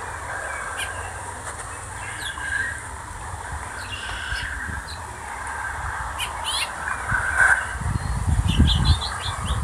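Small birds chirping, with short scattered calls over a steady background, and low rumbling on the microphone near the end.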